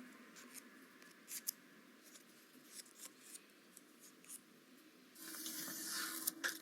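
Small craft-bench handling sounds of paper or card being worked by hand: scattered light taps and clicks, then about five seconds in a louder steady scratchy hiss begins.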